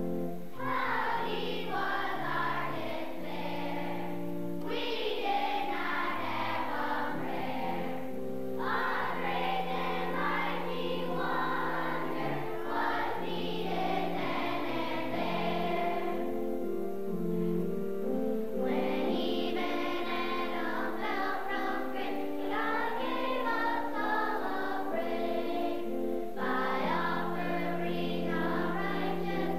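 A choir singing with instrumental accompaniment in phrases, held lower notes sounding under the voices.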